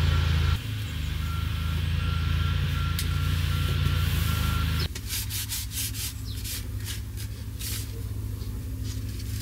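Quick rubbing strokes of a wet wipe wiping a surface, heard over a steady low hum that drops abruptly about five seconds in.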